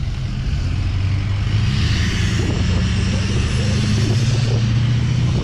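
A pickup truck engine running close by in traffic. Its low engine note swells over the first couple of seconds and then holds steady, with tyre and road noise over it.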